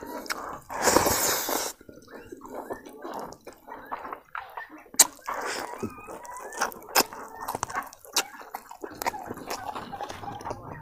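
Close-up eating sounds: wet chewing, squishing and sharp lip-smacking clicks as a man eats rice and boiled pork trotter with his hands, with a louder noisy burst about a second in.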